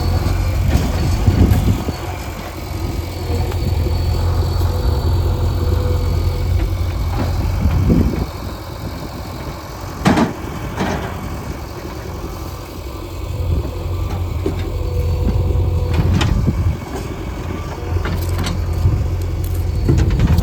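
JCB 3DX backhoe loader's diesel engine running, its note rising and falling with the work, with several sharp knocks of stones striking metal, the loudest about halfway through.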